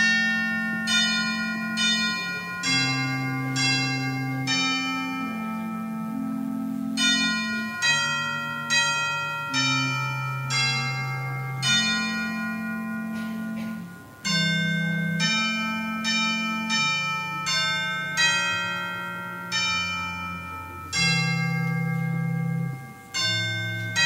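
Slow instrumental music in bell-like tones: a melody of struck notes, each ringing and fading, over held low notes, with a brief break a little past halfway.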